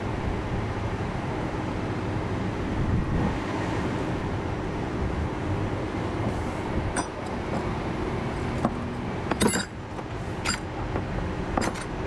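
Metal parts and hand tools clinking and knocking as they are picked up and handled, several short clinks in the second half, over a steady low rumble.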